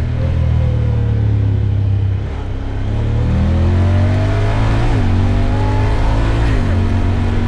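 Side-by-side off-road buggy engine under way. It eases off over the first two seconds, then accelerates with rising pitch, broken by two sudden drops in pitch about five and six and a half seconds in as it shifts up.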